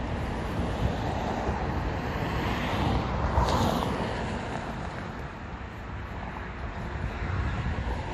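Wind buffeting the microphone over the low, steady running of a distant excavator's engine, with a brief hiss a little over three seconds in.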